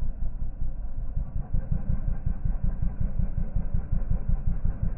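Small off-road engine running at low speed, heard as a fast, low, fairly even pulsing that grows stronger and steadier about two seconds in.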